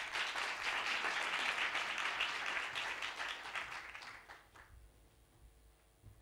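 Audience applauding, dying away after about four seconds.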